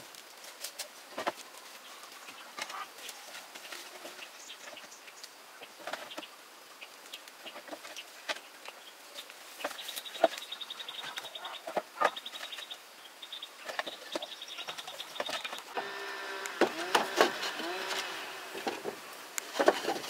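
Scattered knocks and taps, with an insect's fast pulsing buzz for about five seconds from halfway through. Animal calls come in near the end.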